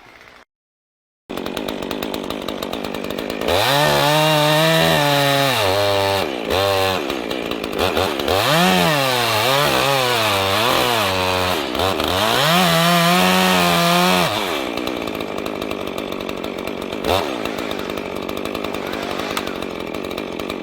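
Two-stroke chainsaw running at idle, then held at full throttle in a cut for about ten seconds, its pitch dipping and recovering again and again as the chain loads up in the wood, before it drops back to idle.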